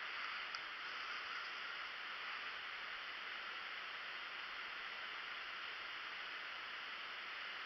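Faint, steady rush of flowing creek water.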